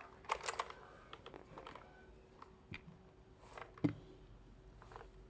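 Scattered light plastic clicks and taps from a mechanical keyboard being handled, a few at a time with short pauses between.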